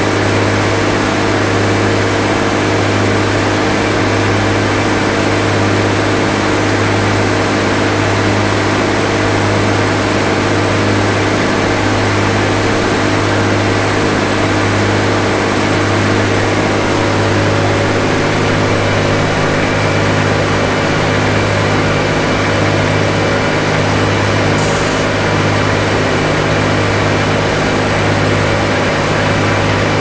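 Circular sawmill running steadily with no log in the cut: the large headsaw blade spinning and the belt-driven feed works turning, a loud, even mechanical drone.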